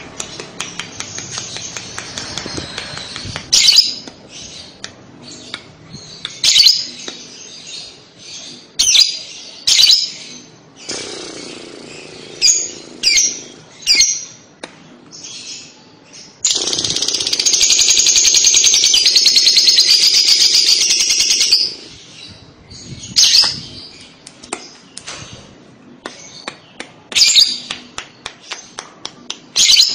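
Lovebird calling in short, sharp, shrill chirps, with a long, fast, rattling chatter of about five seconds about halfway through. This is the 'ngekek' trill that keepers play to coax young lovebirds into calling.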